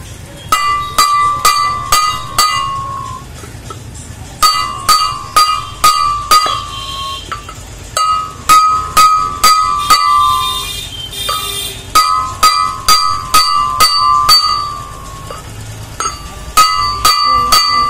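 Hammer striking a steel drift to drive a bearing in a Yanmar roller, each blow ringing with a clear metallic tone. The blows come in runs of about five, roughly two a second, with short pauses between runs.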